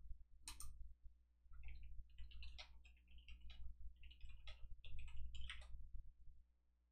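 Rapid, irregular clicking of a computer keyboard and mouse in use, thickest through the middle seconds, over a low steady hum.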